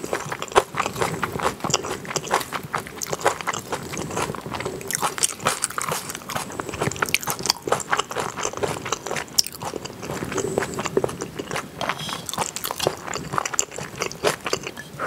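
Close-miked chewing of spicy kimchi pasta with thick fettuccine noodles and kimchi: a dense run of small, sharp mouth clicks.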